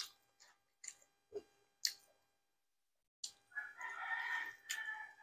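A rooster crowing in one long, drawn-out crow that starts about three seconds in. Before it come a few short, sharp smacking clicks of hand-eating and chewing, the loudest just under two seconds in.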